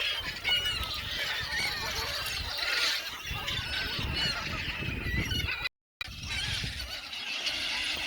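A large flock of birds calling over one another in many overlapping short, squealing cries. The sound cuts out for a moment about two-thirds of the way through.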